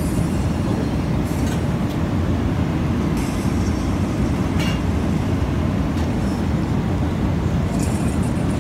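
Steady low rumble of a jet airliner cabin in flight, the drone of engines and rushing air, with a few faint clicks.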